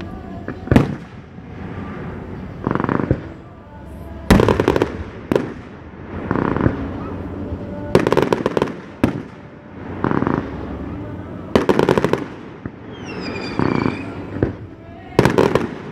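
Fireworks display: aerial shells bursting one after another as loud, sharp bangs, each followed by crackling and a rolling echo. A falling whistle sounds near the end.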